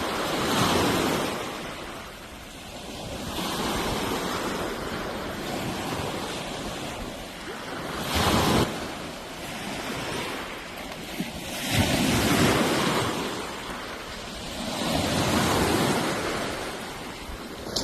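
Sea waves washing in, the noise swelling and falling back every three to four seconds, with one sharper surge about eight seconds in.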